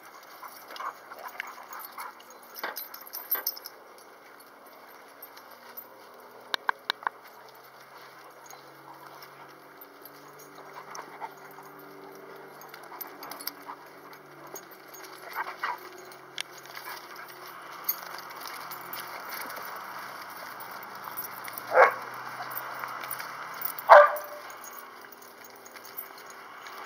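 Dogs playing together in snow, with a quick run of small clicks about seven seconds in and two short, loud barks near the end, over a faint steady hiss.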